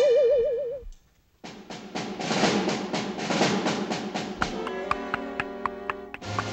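Cartoon orchestral score. A wavering whistled tone fades out within the first second, and after a short pause a snare drum plays a quick, even run of strokes. Sustained pitched notes join it near the end.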